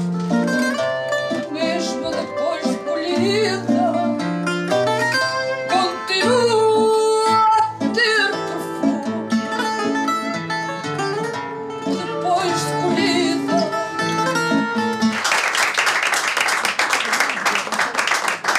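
Live fado: a singer accompanied by a Portuguese guitar and a guitar with a stepping bass line, the song ending about fifteen seconds in. Applause follows it.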